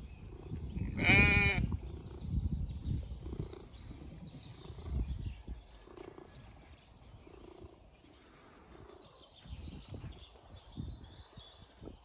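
A Zwartbles sheep bleats once, about a second in. Under it runs the low pulsing purr of a tabby cat being scratched right at the microphone.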